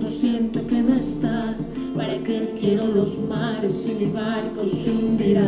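Music: a song with a wavering singing voice over steady held accompaniment notes.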